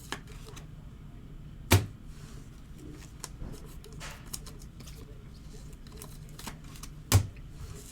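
Trading cards and packs being handled on a table: light rustles and small clicks, with two sharp thumps about five seconds apart, the first a couple of seconds in and the second near the end.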